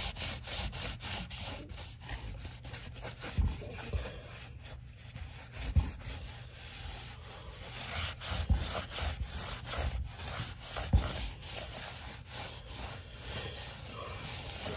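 Cloth shop rag rubbed back and forth over the rubber sidewall of a Craftsman lawn mower front tire, in quick repeated scratchy strokes, with a few dull low thumps in between.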